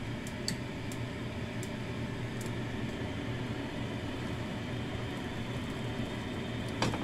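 Egg and prawns frying in a nonstick pan: a steady sizzling hiss over a low hum, with a few small pops in the first couple of seconds and a sharper click near the end.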